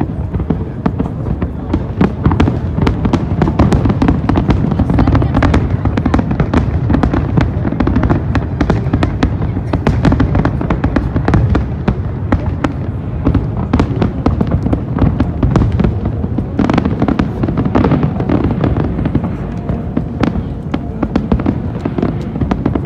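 Fireworks display: a dense, continuous barrage of booms and crackling bursts, many each second, thinning a little in the last few seconds.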